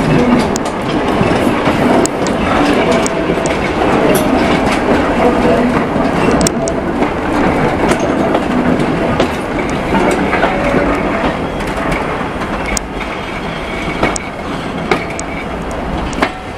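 Heritage railway carriage running along the track: a steady rumble of wheels on rail, with irregular sharp clicks as the wheels pass over rail joints.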